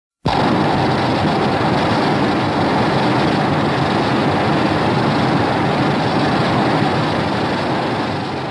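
A loud, steady rushing rumble with no clear pitch starts abruptly and holds for about eight seconds, then begins to fade near the end.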